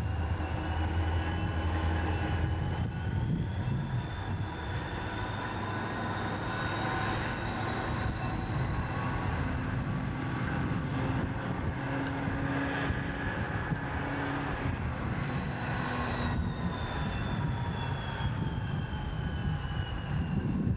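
Diesel locomotive engine running as the unit moves slowly through the yard. A high whine climbs gradually in pitch over the first two-thirds and falls back near the end, over a steady low engine rumble.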